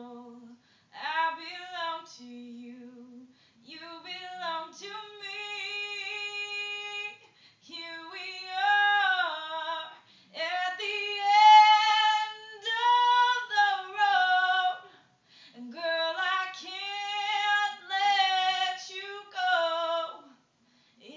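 A woman singing a slow song unaccompanied, in phrases of a few seconds with short breaks between them and long held notes, loudest about halfway through.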